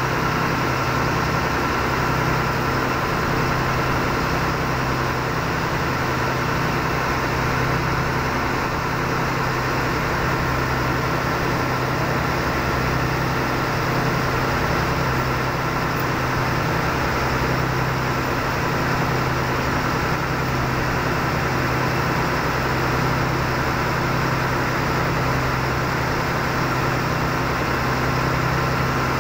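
A river cruise boat's engine running steadily, heard from the deck as a constant drone with an even, regular throb low down.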